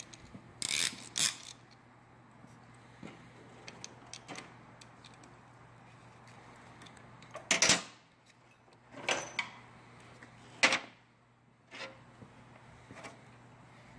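A piston with new rings on its connecting rod being handled and turned by hand to set the ring gaps, giving a few short metallic scrapes and clicks with quiet between them.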